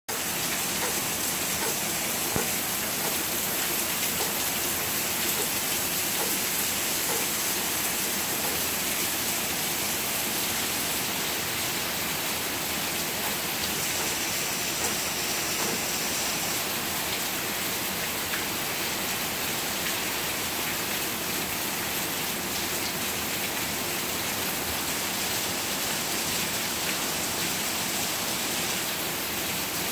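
Heavy rain pouring down steadily: a dense, even hiss of countless drops that keeps up without a break.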